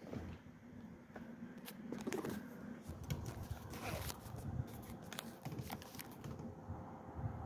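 Scattered small clicks and rustles of hands and small tools handling the work and the phone, with patches of low wind rumble on the microphone.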